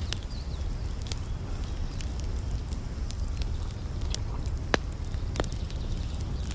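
Wood fire crackling in a small boxy twig stove: scattered sharp pops, the loudest about three-quarters of the way through, over a low steady rumble.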